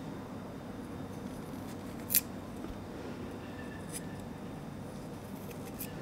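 Japanese kitchen knife cutting notches into a small piece of raw carrot held in the hand: one crisp, sharp cut about two seconds in, with fainter clicks of the blade near four seconds and near the end, over a steady low background hum.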